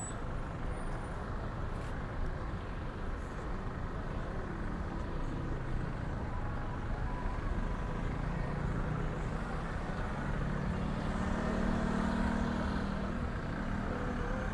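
Road traffic: a steady rumble of cars and motorbikes passing on a busy street, with a vehicle's engine hum building from about eight seconds in and easing near the end.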